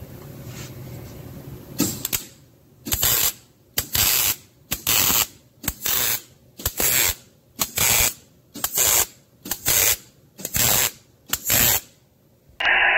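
MIG welder laying short stitch welds on steel: about a dozen bursts of sizzling arc crackle, each under half a second, roughly one a second, starting about two seconds in.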